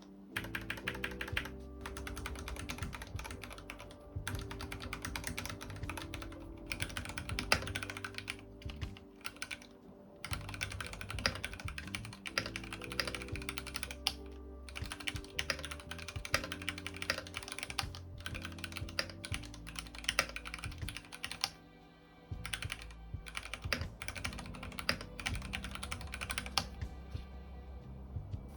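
Typing on a mechanical keyboard with linear Cherry MX Red switches: fast runs of key clacks in bursts, broken by short pauses, with background music underneath.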